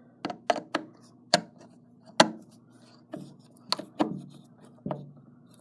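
Irregular sharp clicks and taps as a screwdriver works on the screws of a metal window lock, about eight in all.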